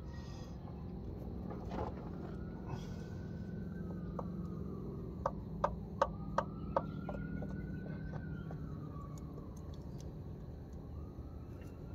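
Five sharp metallic clicks in quick succession about halfway through, as hands work the transmission's accumulator housing and its lines loose. A faint siren wails slowly up and down throughout, over a low steady hum.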